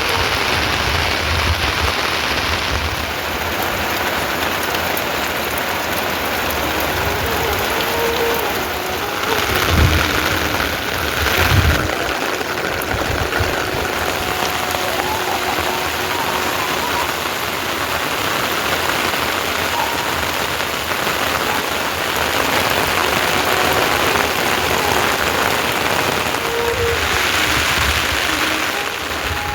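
Steady rain falling, with two brief louder low thumps about ten and twelve seconds in.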